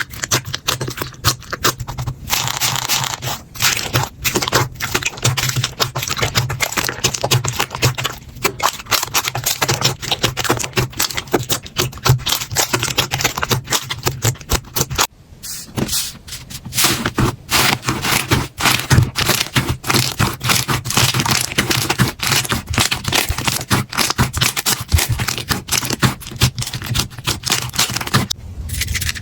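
Slime being squished and pressed, making a dense, fast run of small crackles, clicks and pops. The texture changes abruptly a few times.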